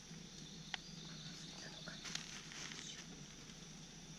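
Light clicks and a brief clatter of plastic folding camp cups being handled, over a steady high insect drone.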